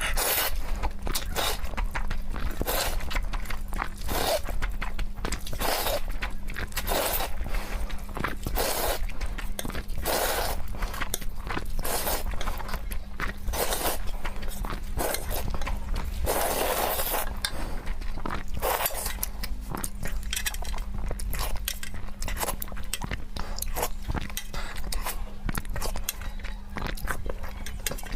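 Close-miked eating of spicy noodles and egg curry: chewing and wet mouth sounds, a dense run of short clicks with a few longer noisy stretches, over a steady low hum.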